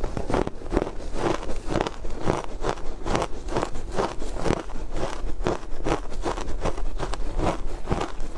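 Chewing of powdery frozen ice dusted with matcha powder: rapid, steady crunches, about three a second.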